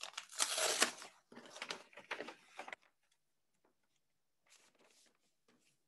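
Papers rustling as a bid packet is opened and its documents leafed through: several bursts of rustling in the first three seconds, then fainter rustles near the end.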